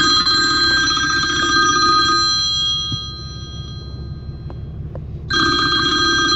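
A phone ringtone ringing twice: a first ring of several steady high tones that fades out over about three seconds, then a second ring starting about five seconds in.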